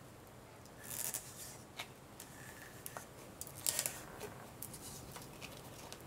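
Plastic cap of a bottle of Aleene's Original Tacky Glue being twisted and worked open by hand: a few faint, short scratchy rasps and clicks, about a second in and again past the middle.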